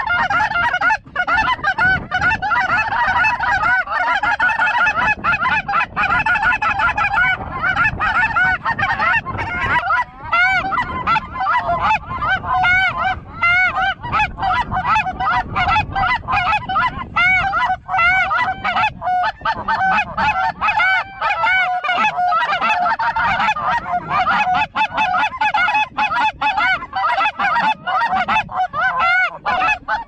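Goose calls blown by several hunters, a dense run of quick honks and clucks, mixed with the honking of the flocks of geese overhead. It goes on without a break.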